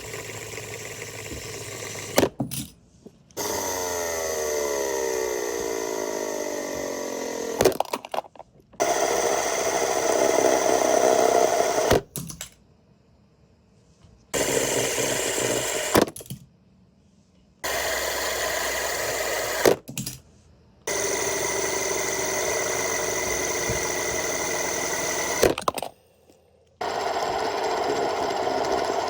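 Fidget spinners whirring with a steady mechanical buzz, in several separate spins broken by sharp clicks and short silences. In one spin, a few seconds in, the pitch falls steadily as the spinner slows.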